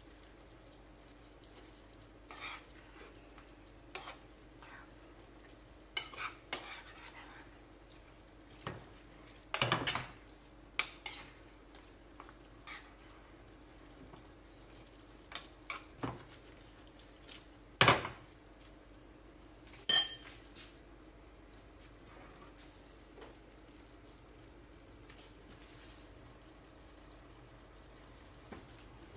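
A utensil knocking and scraping against a frying pan in a dozen or so separate clicks while food is stirred, with faint frying underneath; the clicks stop about two-thirds of the way through, leaving only the faint frying.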